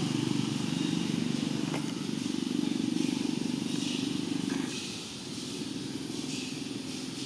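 A motor running with a steady low drone that eases off a little about two-thirds of the way through, with a few faint clicks and short high sounds above it.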